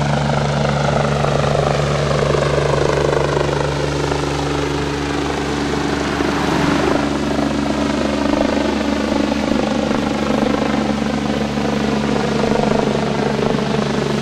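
Medevac helicopter climbing away just after liftoff: its rotor and turbine engines run loud and steady, with a high whine that slowly falls in pitch.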